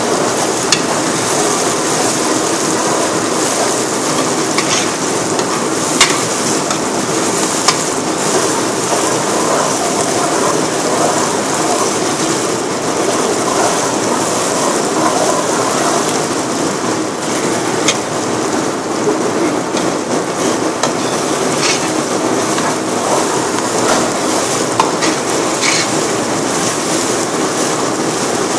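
Chopped onion, garlic and tomato paste sautéing in a large aluminium pot, sizzling steadily as they are stirred with a metal utensil, with a few sharp clicks of the utensil against the pot.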